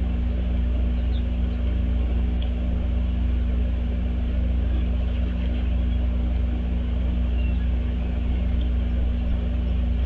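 A steady low hum that does not change, with a few faint, very short high bird chirps above it.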